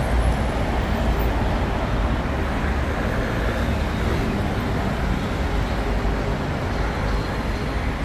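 Steady city street traffic noise: a continuous low rumble of road vehicles, with no single event standing out.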